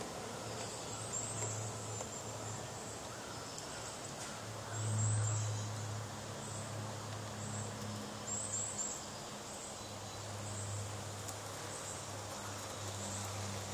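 Large-scale garden model trains running on outdoor track: a low hum that swells about five seconds in and again near the end as a diesel locomotive comes closer. High, repeated chirping sounds throughout.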